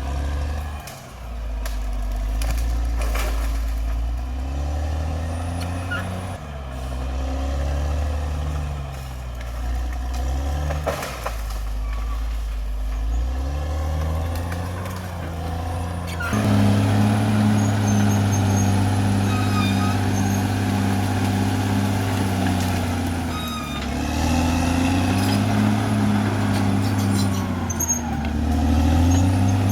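Caterpillar D6R XL bulldozer's diesel engine working under load, its note stepping up and down as the throttle changes. A little past halfway it jumps to a louder, higher speed and holds there with brief dips, with short high squeaks over it.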